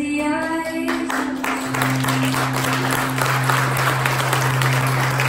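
Audience applause that starts about a second in and carries on, over background music with steady sustained low notes.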